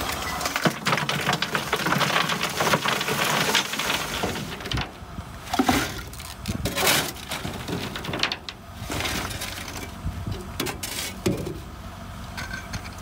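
Lumps of coal clattering and rattling as a bucketful is tipped into a steam locomotive's bunker. Then a steel shovel scrapes and digs into a pile of coal, with lumps clinking into a metal bucket in separate bursts.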